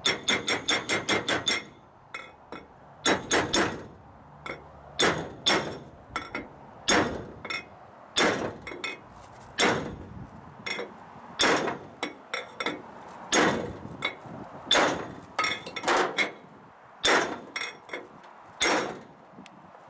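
Hammer blows driving a wheel bearing race into its seat, metal on metal with a ringing clang. A quick run of about eight blows opens it, then single, double or triple strikes follow every second or two.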